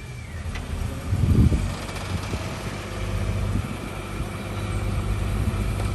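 Vehicle engine running steadily with a low, even hum, swelling briefly about a second and a half in.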